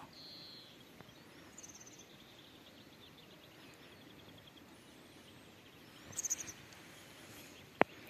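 Faint outdoor ambience with a few high small-bird chirps and a short run of fast insect-like ticking. A brief cluster of louder chirps comes about six seconds in, and a single sharp click comes near the end.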